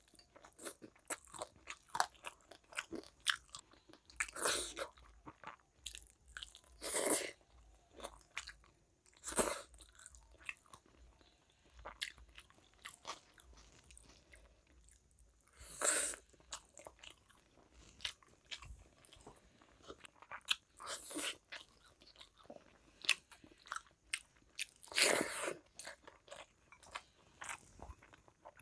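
A person eating by hand, chewing and biting food, with irregular small wet clicks and a few louder crunching bites every few seconds.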